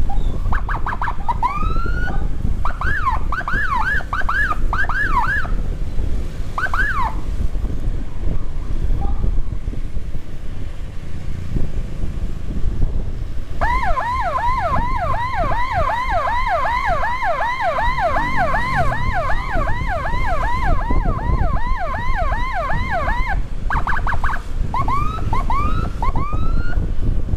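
Electronic emergency siren on an ambulance escort run, sounding short rising chirps in scattered bursts, then a fast continuous yelp of rising whoops, about three a second, for around ten seconds midway, then chirps again. Under it runs the steady rumble of motorcycle engine and wind.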